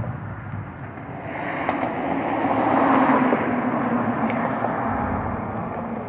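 A road vehicle passing: a steady rushing noise that swells to a peak about halfway through and then slowly fades.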